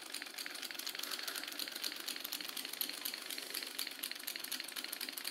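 Homemade two-cylinder 12-volt solenoid engine running steadily: a fast, even clatter of clicks.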